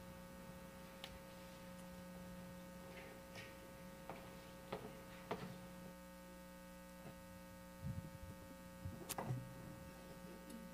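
Steady electrical mains hum in the audio feed, with a few faint, short clicks and knocks scattered through it; the loudest click comes near the end.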